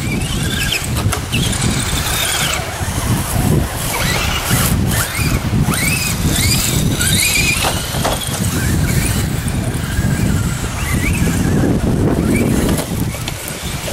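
Electric motors of radio-controlled crawler trucks whining in short rising and falling bursts as they are throttled up a sandy bank, over heavy wind buffeting the microphone.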